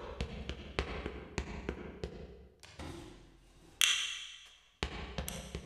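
Footsteps tapping at about three a second, then a brighter, briefly ringing sound about four seconds in as the box lid is lifted, followed by a few more taps.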